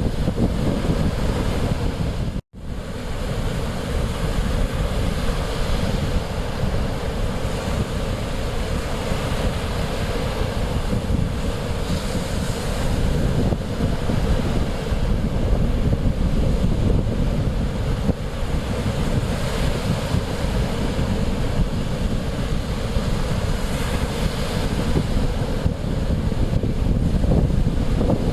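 Mediterranean Sea surf washing in, with strong wind buffeting the microphone as a heavy low rumble. The surf swells louder now and then, and the sound cuts out for an instant about two and a half seconds in.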